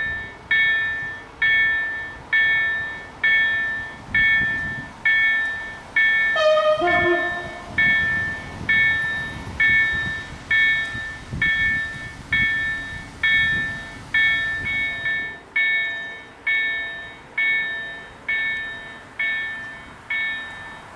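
Railway level-crossing warning bell ringing steadily, about one stroke every 0.8 seconds: the warning that a train is approaching. A short horn sounds once, about six and a half seconds in.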